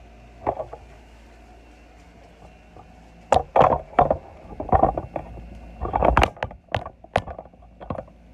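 Irregular knocks and rustling: one light knock about half a second in, then after a quiet stretch a cluster of sharp knocks and scuffs in the second half, the loudest near the middle.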